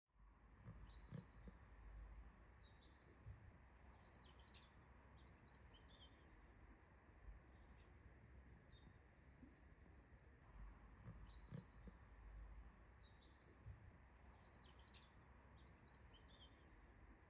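Faint outdoor ambience of small birds chirping and calling, with short high twitters and trills throughout, over a low steady rumble.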